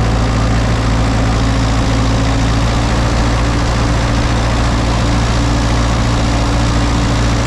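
Kubota KX161 mini excavator's four-cylinder diesel engine running steadily, heard up close in the open engine bay. The owner takes its sound, with oil blowing out of the dipstick hole, for loss of compression in an overheated engine.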